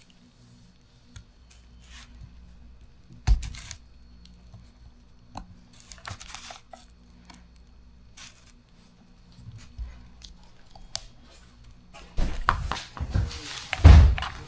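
Hands working on a disassembled trim motor at a workbench: scattered small clicks and rustling of parts and tools, with a sharp knock about three seconds in. Near the end it turns into a busier clatter of handling with one heavier thump.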